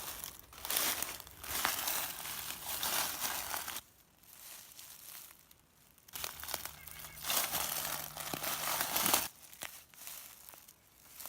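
Footsteps crunching through dry fallen leaves, in two stretches of walking with a quieter pause in the middle and a lull near the end.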